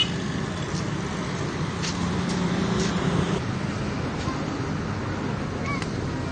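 Steady outdoor traffic noise with a low engine hum that swells slightly about two seconds in.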